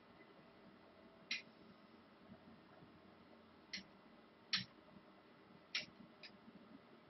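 Five short, sharp clicks at uneven intervals over a faint low background hum. The loudest comes about halfway through, and two come close together near the end.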